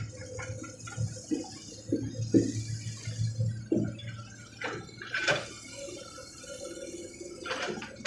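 Hydraulic excavator at work: a low engine hum under a run of irregular knocks and clanks, about a dozen over the few seconds, with a sharp heavy clank right at the end.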